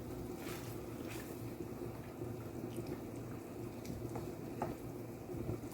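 Pot of saltfish and baked beans simmering, with faint scattered bubbling pops over a steady low hum.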